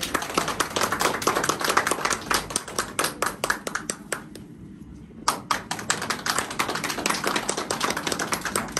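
People clapping their hands in quick, irregular claps. The clapping breaks off about four seconds in and starts again about a second later.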